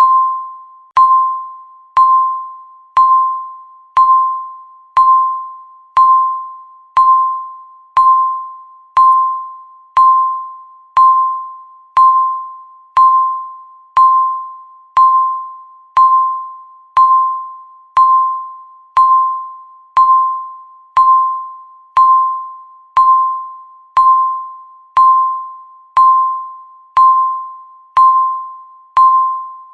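Countdown timer beeping once every second: a single electronic tone that starts sharply and fades away before the next, repeating evenly.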